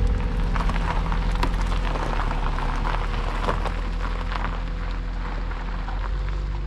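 A car pulling away slowly across a gravel car park: the engine runs low and steady under the crackle and crunch of tyres on loose gravel, which thins out after about four seconds.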